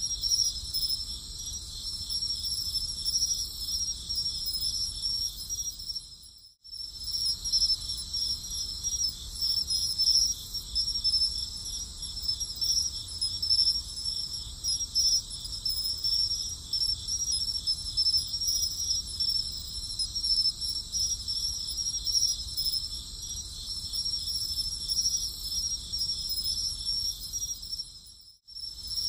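Crickets chirping in a continuous chorus of fast, high-pitched trills over a faint low rumble; it cuts out for a moment twice, about six seconds in and near the end.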